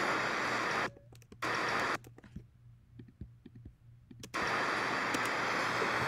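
Steady hiss of the video soundtrack's background noise, cutting out twice to near silence in which a few faint clicks sound.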